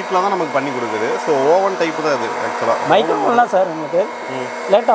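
Hot-air oil-free snack maker's blower running steadily, with a person's voice wavering in pitch over it.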